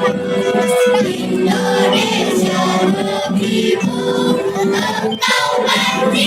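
Children's choir singing together, holding sustained notes in unison.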